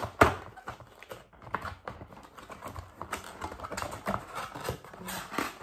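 Cardboard box and plastic packaging being handled and pulled open: irregular clicks, crinkles and scrapes, with one sharp snap about a quarter second in.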